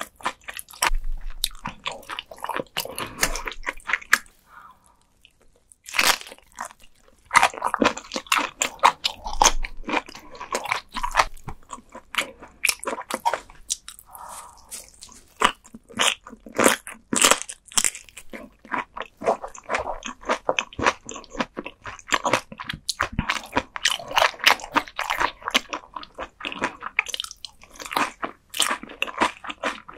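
Close-miked eating of bone-in raw gizzard shad: crisp crunching bites and wet chewing as the soft bones are chewed through. A brief lull about four seconds in ends in a sharp bite.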